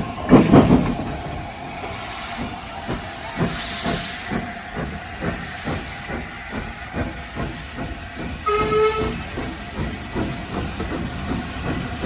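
Train running with an even beat of about two to three knocks a second and repeated hissing. A brief whistle sounds about eight and a half seconds in.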